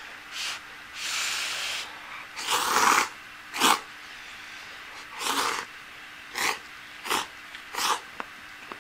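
A person slurping instant soba noodles from a cup in about eight short, noisy slurps. The longest come about a second in and near three seconds, and quicker ones follow toward the end.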